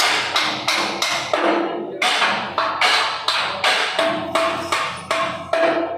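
Regular percussive strikes, about three a second, each ringing briefly as it decays.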